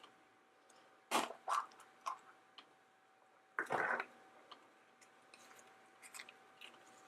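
Light plastic clicks and rustles of a surprise egg and small toy pieces being handled, with a longer rustle about three and a half seconds in. A faint steady tone runs underneath.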